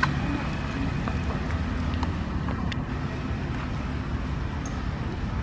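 Steady low outdoor rumble, like wind on the microphone, with a few faint clicks and rustles as monkeys move through the undergrowth.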